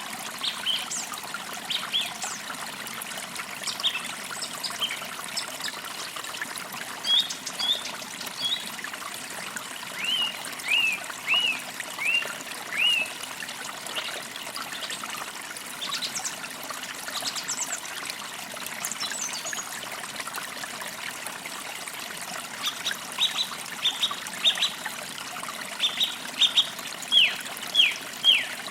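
A small forest creek trickling steadily, with birds chirping over it: short high notes scattered throughout, and runs of repeated down-slurred chirps about ten seconds in and again near the end.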